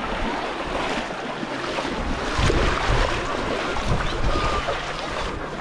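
Bare feet wading and splashing through shallow sea water, with wind buffeting the microphone, heaviest about halfway through.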